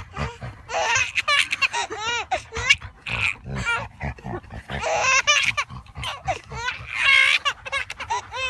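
A dog vocalizing in a run of short, high-pitched whines and yelps that rise and fall in pitch.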